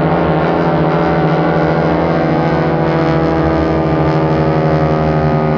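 Several AT-6 Texan aerobatic planes' Pratt & Whitney R-1340 radial engines droning steadily together, with a low, even, slightly beating hum.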